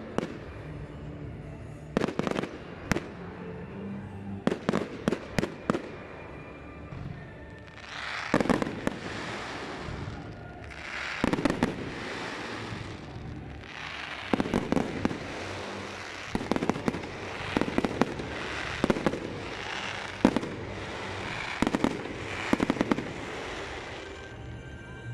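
Aerial firework shells bursting in a display: sharp bangs in quick clusters, then from about 8 seconds in long stretches of dense crackling from glittering star effects, with more bangs through it.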